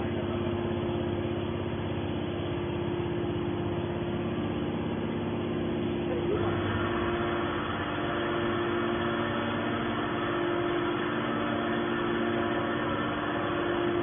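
Hydraulic scrap metal baler's motor and pump running with a steady hum. About six seconds in, a higher whine joins and holds.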